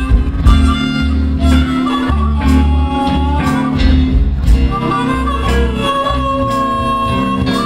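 Live blues band playing an instrumental break: bass and drums under a lead line of long held, bending notes.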